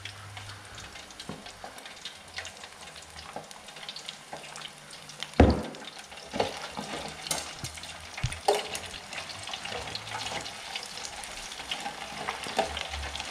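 Beer-battered flathead pieces sizzling in hot oil in an electric deep fryer, with many small pops. A sharp knock about five seconds in is the loudest moment, with smaller knocks a few seconds later.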